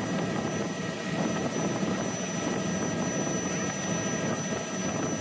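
Helicopter in flight, heard from inside the cabin: a steady drone of engine and rotor noise with a thin high whine over it.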